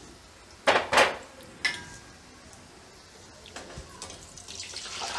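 Metal utensil knocks against the frying pan, three short clanks, the loudest two close together about a second in. Near the end the sizzle of methi na gota fritters deep-frying in hot oil swells as a wire-mesh slotted spoon stirs them.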